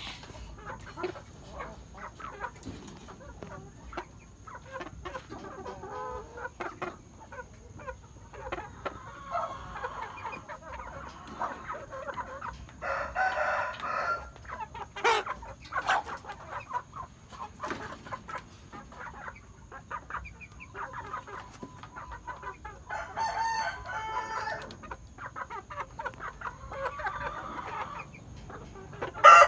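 Chickens clucking with short calls scattered throughout, over many small ticks of beaks pecking at feed on a sand floor. A rooster's loud crow begins right at the end.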